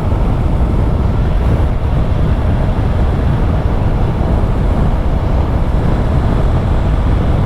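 Steady wind rush and road noise on a helmet microphone while a Yamaha R3 motorcycle is ridden at speed. It is an even, heavy rumble, deepest at the bottom, with no distinct engine note standing out.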